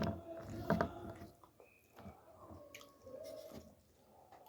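A person chewing a large mouthful of bread close to the microphone, with wet mouth clicks and smacks, strongest in the first second.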